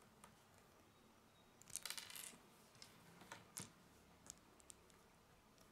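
Small plastic Lego pieces clicking and rattling as they are handled and pressed together, with a short burst of rattling clicks about two seconds in and a few single clicks after.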